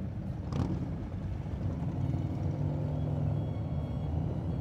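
Harley-Davidson V-twin motorcycle engine running steadily as the bike rides along at street speed, with a low throb and road noise. A short sharp click about half a second in.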